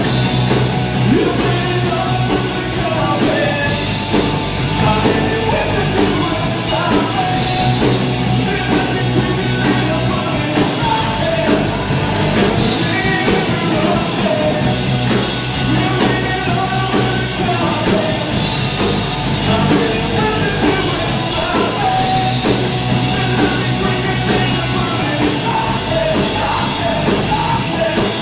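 Live rock band playing loud: electric bass, electric guitar and drum kit, with the bassist singing lead vocals into the mic.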